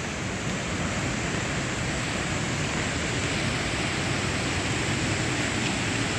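Steady rushing water of a hillside stream spilling down as a small waterfall: an even, unbroken hiss.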